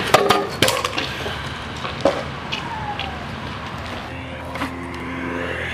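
Stunt scooter wheels rolling over a concrete skatepark bowl with a steady rumble, and sharp clacks of the deck and wheels hitting the concrete in the first second and now and then after.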